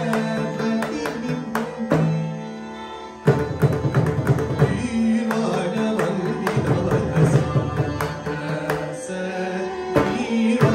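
Carnatic music: a male voice sings with violin accompaniment and mridangam drum strokes. Around two seconds in the music thins to a softer held note, and a sharp mridangam stroke brings it back in a little after three seconds.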